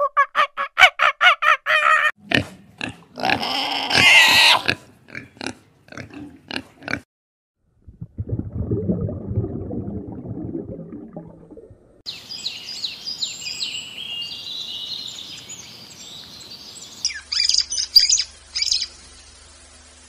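A string of different animal calls. It opens with a fast run of pitched calls and a mix of cries and clicks. A low, noisy stretch follows, and high chirps and squeaks come near the end.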